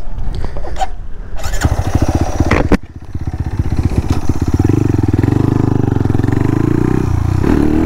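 Honda Monkey with a 181 cc big-bore single-cylinder engine and titanium exhaust, running at low revs, a sharp clunk about two and a half seconds in, then pulling away with the engine note rising and settling into steady running under throttle.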